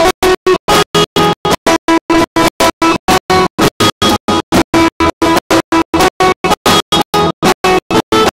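Live stage band music, its sustained notes chopped into a rapid stutter by drops to silence about five times a second.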